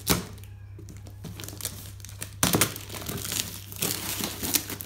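Box packaging being opened by hand: irregular crinkling and tearing rustles, with a sharp burst right at the start and a denser stretch of rustling from about halfway through.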